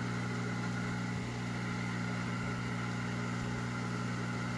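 Hot-air rework station heat gun running at maximum airflow: a steady fan hum with an even rush of air. It is heating up toward its 350-degree set temperature.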